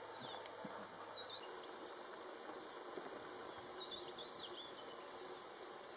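Faint outdoor ambience with a few short, high, sliding chirps: a couple early on, then a small cluster about four seconds in.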